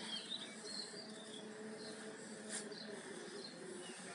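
Small birds chirping outdoors, a scatter of short high chirps that come thickest in the first second, over a faint steady low hum. Picked up by a smartphone's microphone during a mic test.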